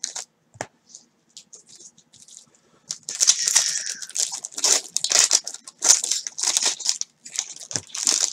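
Foil trading-card pack wrappers crinkling and tearing as packs of Topps Finest baseball cards are opened by hand. A few faint crackles at first, then busy, continuous crinkling from about three seconds in.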